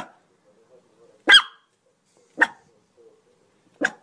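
Dog barking: four short, sharp barks spaced about a second apart, the second one the loudest.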